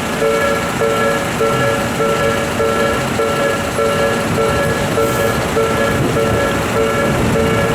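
Japanese level-crossing warning bell ringing in a steady repeating pulse, just under two strikes a second, with the rumble of a train beneath.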